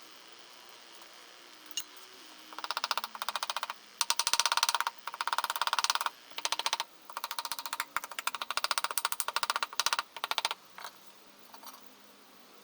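A socket ratchet clicking rapidly in a series of short bursts, each about a second long, stopping about ten seconds in.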